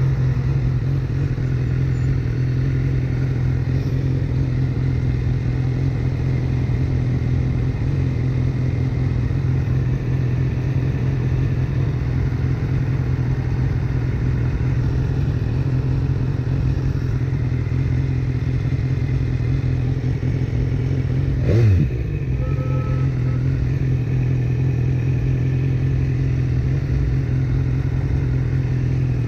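BMW S1000R's inline-four engine idling steadily while stopped, with one short throttle blip about three quarters of the way through.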